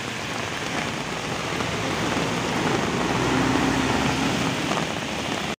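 Heavy rain pouring, with an intercity coach's engine and tyres on the wet road passing close by. The engine grows louder about halfway through as the bus goes past.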